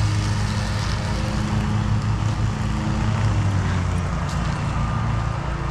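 Riding lawnmower engine running at a steady speed, a constant low drone.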